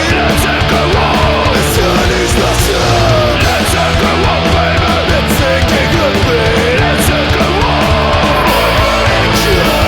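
Studio recording of a punk rock song played by a full band: distorted guitars, bass and drums with cymbal crashes. Over it a melodic line bends up and down in pitch.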